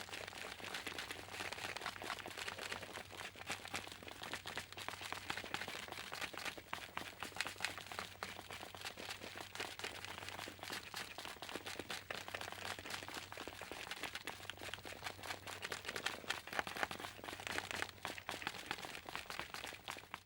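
Footsteps crunching on a loose, crackly surface, a continuous run of irregular crunches and crackles over a faint steady low hum.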